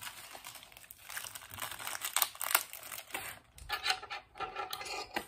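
Plastic packaging being crinkled, pulled and torn at by hand, in irregular rustles and crackles, with a short pitched sound about four seconds in.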